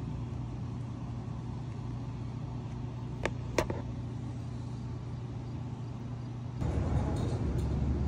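A steady low mechanical hum, with two sharp clicks a little after three seconds in; a louder rumbling noise comes in near the end.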